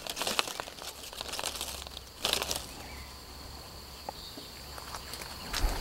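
Lychee leaves and twigs rustling and crackling as a branch is handled, with many small crackles and one louder rustle about two seconds in, then quieter.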